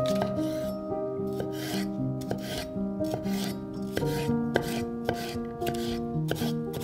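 Chef's knife cutting and dicing a red bell pepper on a wooden cutting board: irregular sharp cuts and knocks of the blade against the board, one every half second to a second or so. Background music with held notes plays underneath.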